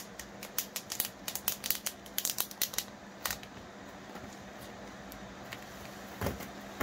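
Clear plastic wrapping crinkling and crackling as it is pulled off a phone box: a quick run of sharp crackles for the first three seconds or so, then a softer rustle near the end.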